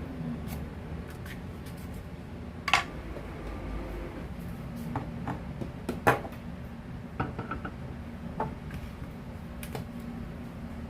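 Knife cutting eggplant on a cutting board, with kitchenware being handled: scattered light taps and knocks, and two louder knocks about three and six seconds in, the first with a short ringing clink.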